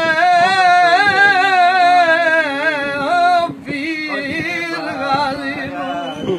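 Male devotional singing without words: a long, ornamented held line with wavering pitch. It breaks off about three and a half seconds in, and a falling phrase follows.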